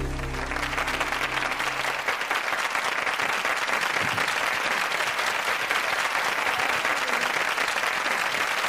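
Audience applauding steadily, a dense even clapping that takes over as the last low notes of the song fade out in the first two seconds.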